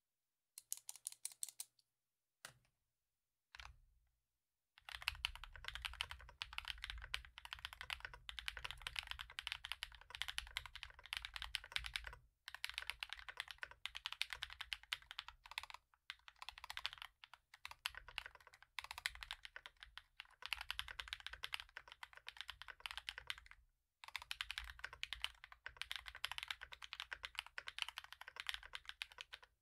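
Typing on an NK65 Aluminum V2 mechanical keyboard with aluminum case and plate, lubed and broken-in NK_ Cream linear switches and doubleshot PBT keycaps, its case dampened with polyfil. A few separate keystrokes come first, then steady fast typing from about five seconds in, broken by a few short pauses.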